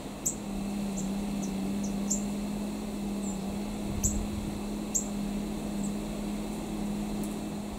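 Short, sharp, high chip notes from a small bird, about a dozen at irregular intervals, over a steady low hum.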